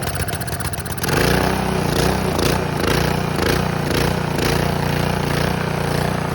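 Honda GC190 single-cylinder engine on a gas pressure washer running after its carburetor cleaning; about a second in, its sound turns louder and heavier, with a strong low drone.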